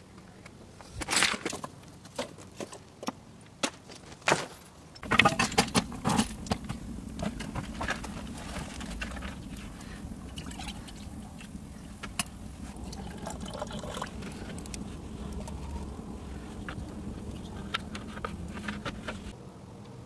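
Water poured from a plastic jug into a small cooking pot, a steady running sound from about five seconds in, with scattered clicks and knocks throughout.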